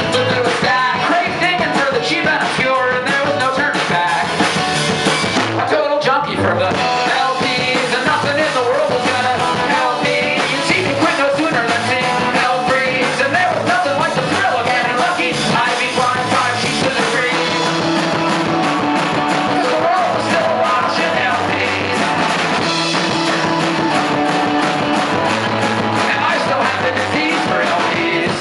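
Live rock band playing loud: strummed acoustic guitar through the PA, electric bass and drum kit, in a fast punk-rock style.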